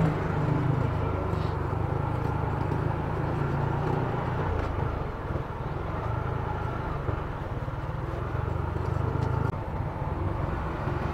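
Small motorcycle engine running steadily as the bike is ridden.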